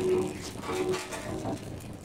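A person's voice, a few short words or calls, over the steady hiss of a lit oxy-acetylene torch.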